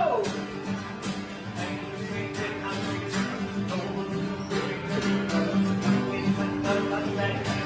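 Upbeat recorded music with strummed acoustic guitar and a steady beat, played over a sound system for a dance.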